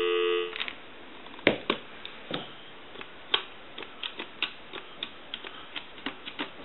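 Telephone dial tone cuts off about half a second in, followed by a run of irregular sharp clicks on the line as a number is dialed.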